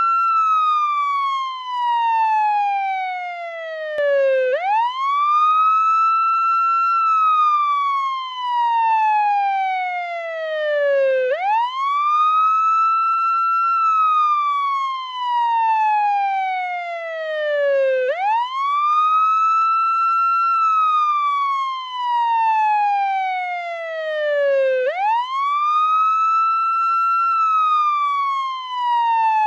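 Portuguese ambulance siren on its wail setting: each cycle rises quickly, holds briefly at the top, then slides slowly down, repeating about every seven seconds.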